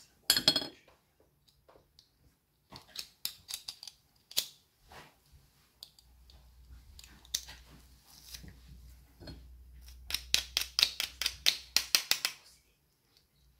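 Stainless-steel garlic press crushing garlic cloves: scattered metallic clicks and snaps of the hinged handles, then a fast run of clicks, about six a second, lasting a couple of seconds near the end.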